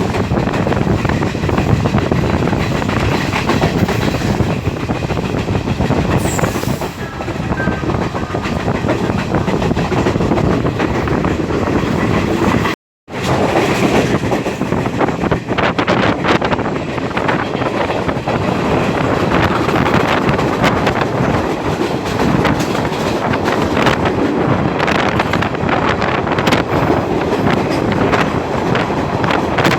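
Train running along the track, a loud steady rumble with the clatter of the wheels over the rails. The sound drops out completely for a moment about 13 seconds in.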